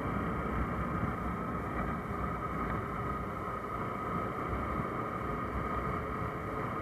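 Motorcycle engine running steadily at cruising speed, heard with wind and road noise on a camera mounted on the bike.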